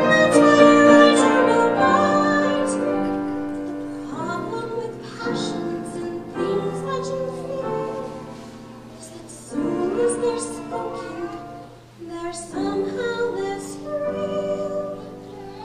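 A woman singing in a classical operatic style, holding long notes with vibrato in phrases that swell and fall away.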